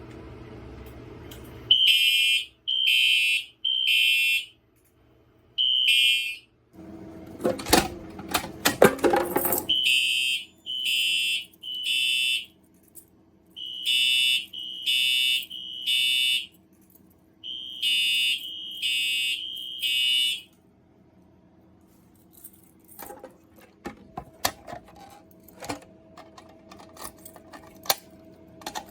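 Fire alarm horn sounding the temporal-three evacuation signal: groups of three high beeps about a second apart with a pause between groups, stopping about two-thirds of the way through. A loud rustling clatter comes between the groups, and scattered clicks and rattles follow near the end.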